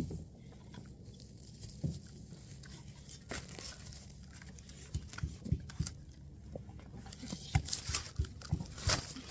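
Goat chewing and crunching feed, with irregular crackles and clicks that come thicker in the second half.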